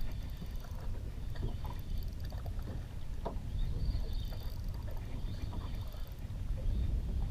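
Steady low rumble and water noise aboard a small fishing boat at sea, with a few faint knocks.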